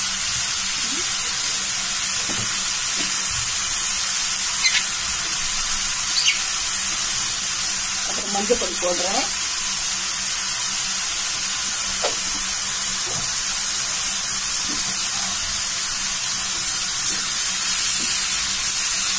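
Sliced onions and green chillies sizzling steadily in hot oil in a kadai, with a couple of sharp taps of a wooden spatula against the pan.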